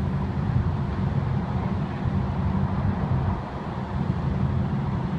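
A steady low rumble of vehicle noise.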